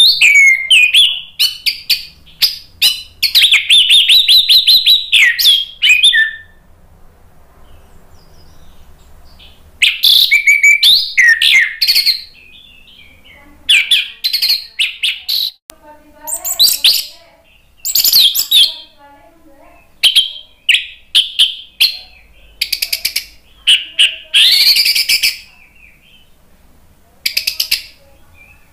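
Orange-headed thrush (anis merah) singing in full voice: loud bursts of rapid, varied chattering notes and whistled phrases, separated by pauses of one to four seconds.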